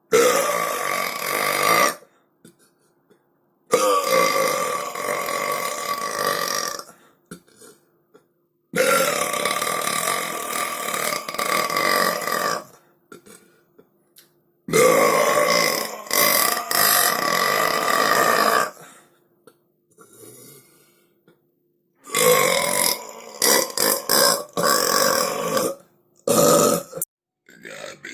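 A string of long, loud human burps: five drawn-out belches of about two to four seconds each, with short silent gaps between them, and a brief one near the end.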